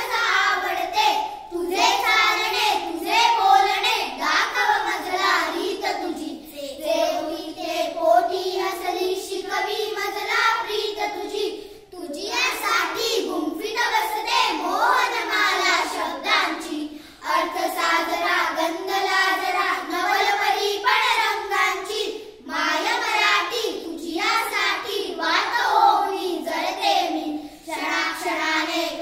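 A group of six children singing a Marathi song together in unison, unaccompanied, with brief breaks between lines.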